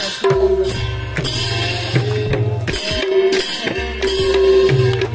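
Music of Assamese dhol drums beating a rhythm, with a steady held tone and deep low notes running under the strokes.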